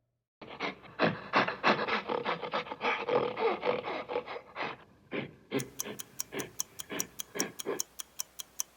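A gorilla calling in a rapid series of hoots, then fading out. From about five and a half seconds in, a quiz countdown timer ticks steadily, about four ticks a second.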